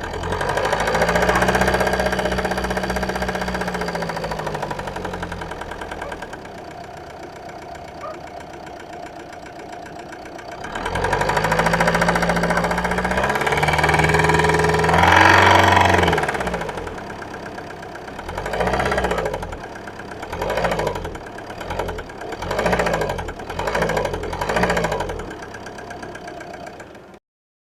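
Renault Mégane II's K9K 1.5 dCi four-cylinder diesel engine, which is knocking, being revved. Two long revs are followed by about five short throttle blips in the second half, and the sound cuts off abruptly near the end.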